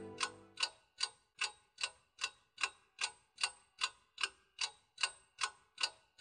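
Clock ticking steadily, about two and a half sharp ticks a second. Low sustained music fades out within the first half second.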